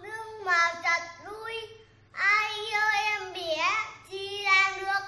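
A young boy reciting a Vietnamese poem aloud, in three phrases with short pauses between them.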